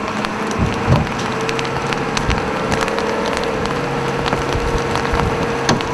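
Hailstones striking the chase van's roof and body in scattered, irregular sharp hits, over a steady rushing noise and a faint hum.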